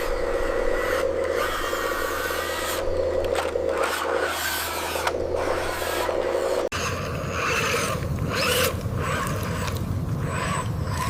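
Small electric gear motors of RC construction trucks whining, over scraping and rasping as they work material. The sound changes abruptly about seven seconds in, the whine fading and a rougher, lower scraping taking over.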